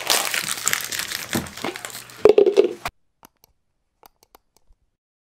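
Snack packaging crinkling and rustling as it is handled, with a short vocal sound near the end. The sound cuts off abruptly about three seconds in.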